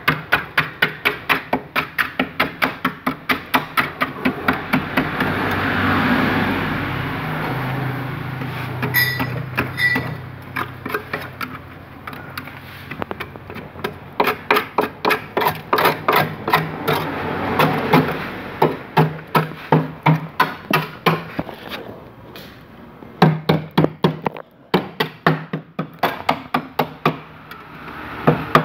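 Rapid hammer blows on the rusted sheet-steel floor of a three-wheeler body, about three to four a second, in runs broken by short pauses.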